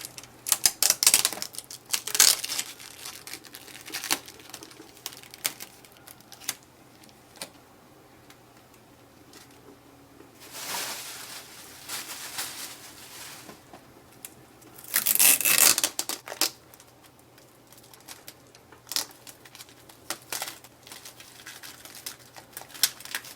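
Packing tape being peeled and plastic wrap crinkling as packing material is stripped off an inkjet printer: irregular crackles and clicks, with two longer peeling sounds about ten and fifteen seconds in.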